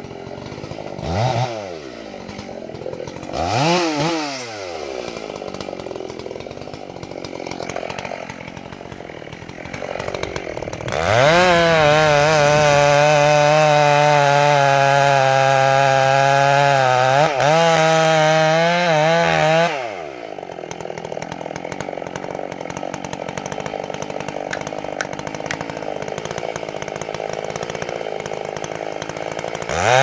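Two-stroke chainsaw idling, blipped twice, then held at full throttle for about nine seconds while cutting into a casuarina trunk, with a brief dip near the end of the cut. It drops back to idle and is revved up again at the very end.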